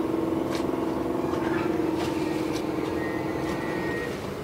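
Small wooden boat's engine running steadily, a low pitched droning hum with a fast even pulse, easing off slightly near the end.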